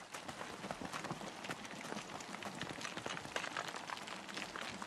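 Hooves of a running caribou herd: a dense, irregular clatter of many small knocks.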